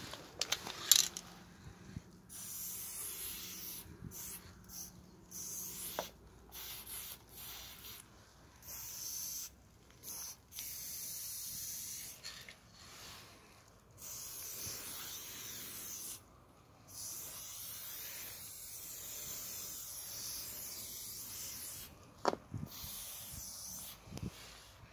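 Aerosol spray paint can hissing in repeated bursts of one to several seconds as paint is sprayed onto a wall, with short pauses between, and a couple of sharp clicks.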